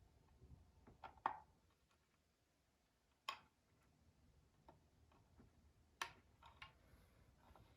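Faint, scattered clicks and taps of small hard parts and tools being handled, with three sharper clicks about a second in, near the middle and about six seconds in.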